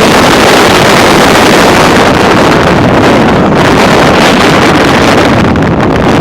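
Strong wind gusts buffeting the microphone, a loud, steady rushing roar of 40 to 60+ mph windstorm winds.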